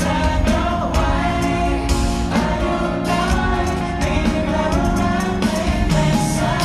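Male vocalists singing a Thai pop song live into handheld microphones over a loud pop backing track with a steady beat.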